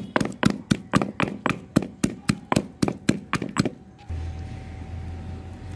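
Stone pestle pounding garlic cloves and ginger in a stone mortar, even thuds about four a second, crushing them to a paste. The pounding stops near the end of the fourth second, and a steady low hum follows.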